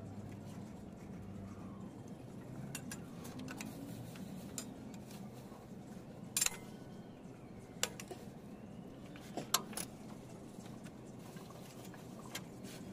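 Scattered sharp metal clinks a few seconds apart as the spring and hardware of a rear drum brake's shoes are handled and fitted by hand.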